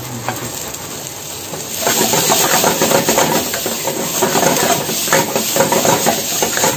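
Shredded cabbage and carrot sizzling and hissing in a flaming pan. From about two seconds in the sizzle grows louder, with a metal spatula scraping and clattering against the pan as the vegetables are stir-fried.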